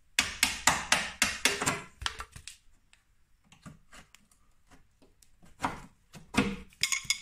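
Hammer striking a chisel held against a car's steel sill to split the panel away along its drilled-out spot welds: a quick run of about ten sharp blows, a pause, then several more blows near the end.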